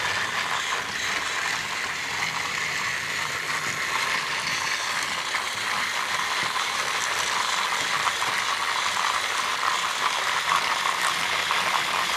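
Battery-powered TrackMaster toy train engines running on plastic track: the steady whir and rattle of their motor gearboxes and wheels.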